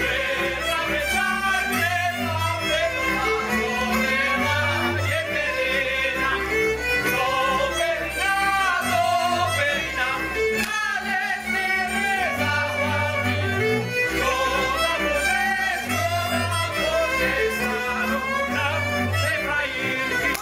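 Slovak folk music led by fiddle, with a male voice singing over a repeating bass line.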